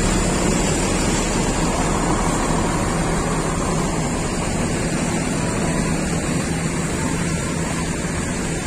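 Diesel bus engine running, a steady low hum with noise over it that grows slowly quieter.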